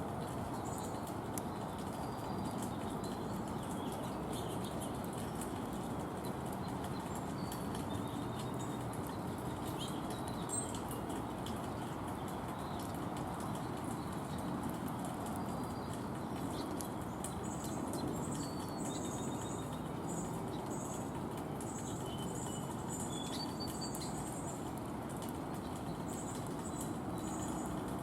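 Small birds at a feeder: brief high thin chirps and, from a little past halfway, a run of very high repeated notes, with light clicks and taps among them, over a steady outdoor hiss.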